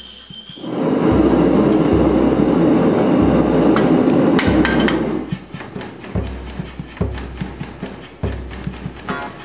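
Power hammer pounding hot steel in rapid blows, loudest in the first half, then continuing as quick, lighter strikes. Background music with a recurring bass note plays underneath.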